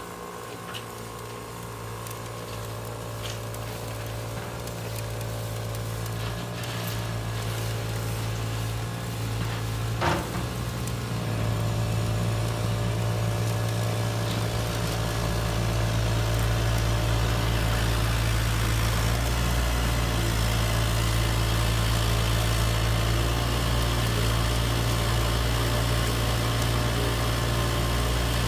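Motors of a model gravel screening plant and its conveyor belts running with a steady hum, growing louder through the first half and then holding level. There is a single sharp click about ten seconds in.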